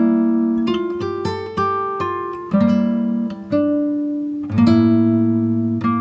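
Background music: an acoustic guitar plucking chords, with a new chord about every second, each ringing out and fading.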